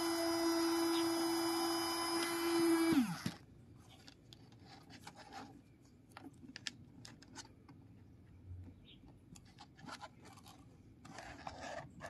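Miniature battery-powered vacuum cleaner's tiny motor running with a steady hum and hiss, then switched off about three seconds in, its pitch falling as it spins down. After that, small plastic clicks and rubbing as the hose and nozzle pieces are handled and fitted.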